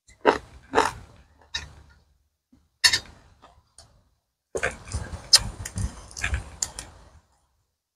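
Crisp snapping of fresh raw yardlong beans broken by hand. There are a few single snaps in the first three seconds, then a quick run of snaps and crackles for about two and a half seconds near the end.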